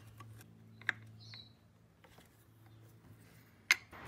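Open-ended 10mm spanner clicking on the airline fitting atop an air suspension strut as it is loosened: two sharp metal clicks, one about a second in and a louder one near the end, with a brief faint squeak between.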